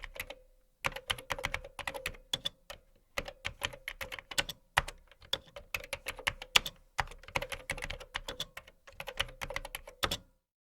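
Typing on a computer keyboard: quick runs of key clicks broken by short pauses. The clicks stop about a second before the end.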